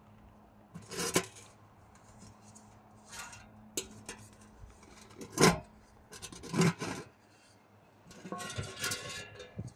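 Sheet-metal mini-keg beer cans of a homemade wood stove being handled: scattered scrapes and clanks of metal on metal as the top can and its lid are gripped, tilted and set back, the loudest knock about halfway through.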